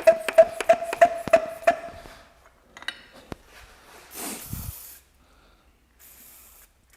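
Metallic clinking with a ringing note, about three times a second for two seconds, like an aerosol can of cleaner being shaken. A short spray hiss follows about four seconds in and a fainter one near six seconds, as the oil pump is cleaned.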